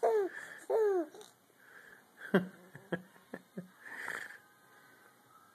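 Baby laughing: two squealing laughs that fall in pitch in the first second, then a few short gasping laugh sounds and a breathy sound about four seconds in.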